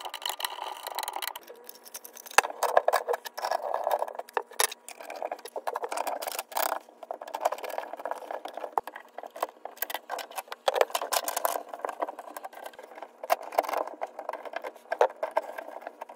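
Black plastic drain pipes and slip nuts being handled and fitted together by hand: irregular clicks, knocks and scraping of plastic on plastic.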